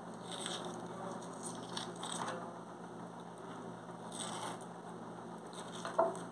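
Faint handling noises as fingers peel the membrane off a piece of raw beef liver: a few soft scrapes and rustles, and one sharp click near the end.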